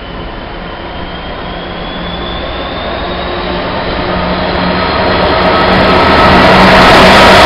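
Class 66 diesel locomotive's two-stroke V12 engine running as the locomotive approaches and passes close by, getting steadily louder, with a high whine that rises slightly in pitch.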